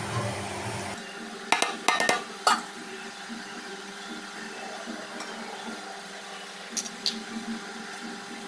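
Sharp clinks against a steel bowl as cooked rice is tossed and mixed by hand: a quick cluster about a second and a half in, and two more near the end, over a steady faint hum.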